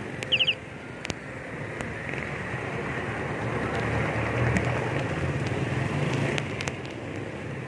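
Road traffic heard from a moving bicycle: steady road and wind noise, with a motor vehicle's engine hum swelling and passing about four to six seconds in. A short high trill sounds right at the start.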